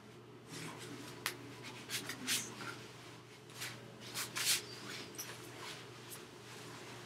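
Soft rustles and taps of hands and jacket sleeves brushing as someone gestures, a dozen or so short brushes, the loudest about four and a half seconds in, over a low steady electrical hum.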